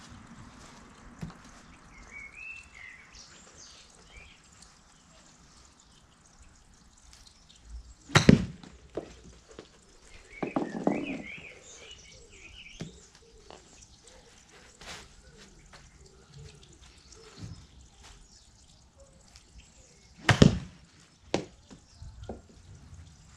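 Two crisp strikes of a golf iron hitting a ball off an artificial-turf mat, about twelve seconds apart, each followed about a second later by a softer knock as the ball hits the tarp backstop.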